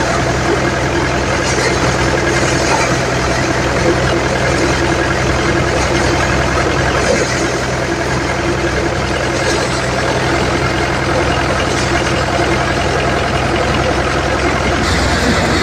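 Mahindra 575 DI tractor's diesel engine running steadily under load as it drives a Dharti Mitra paddy thresher. The thresher drum whirs as bundles of rice stalks are fed in and threshed.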